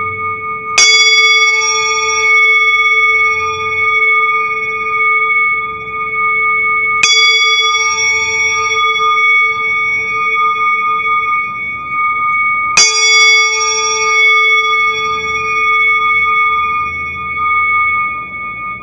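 Hand-held metal singing bowl struck three times with a wooden mallet, about six seconds apart. Each strike rings on in a long sustained tone, the low hum pulsing slowly as it fades.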